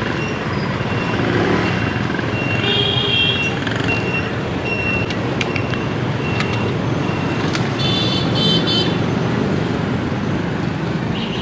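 Steady city street traffic, mostly passing motorbikes, with a few short high horn toots, a cluster of them about eight seconds in. Light clicks sound here and there through it.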